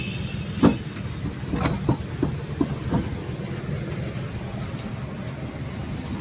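A truck starter motor is handled and set down on a wooden workbench: a clunk about half a second in, then a few lighter knocks over the next two seconds. A steady hiss and low hum run underneath throughout.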